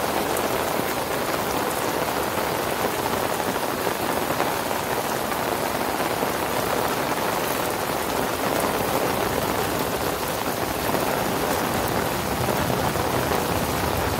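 Heavy rain falling steadily, a dense, even hiss of drops on wet ground and water with no let-up.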